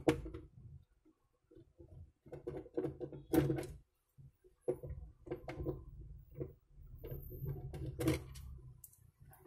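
Hands handling the plastic scanner unit of an HP DeskJet GT 5821 printer during disassembly: scattered clicks, taps and rustles of plastic, loudest about three and a half and eight seconds in.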